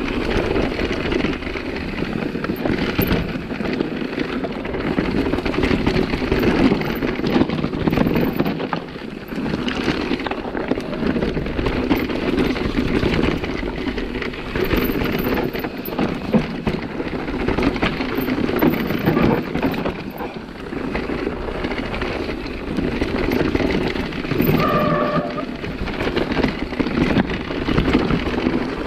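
Nukeproof Megawatt electric mountain bike descending a rough dirt-and-stone trail: continuous rumble of the tyres with rattling and clattering from the bike over the bumps. A brief squeal near the end.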